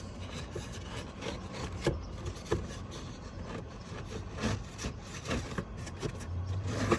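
A cabin air filter scraping and rubbing against its plastic housing as it is slid in, with a few light knocks.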